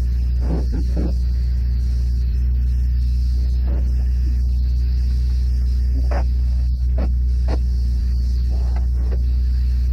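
Spray foam equipment running: a loud, steady low drone, with short faint sounds over it every second or so.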